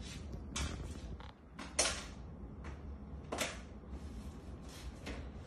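A few light knocks and scrapes as a dog paws at plastic food containers on a kitchen counter, the sharpest about two seconds in.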